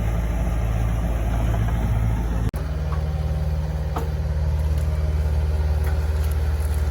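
Heavy-equipment engine running steadily at a constant speed. A brief dropout comes about two and a half seconds in, after which the engine note changes, as from a different machine or position.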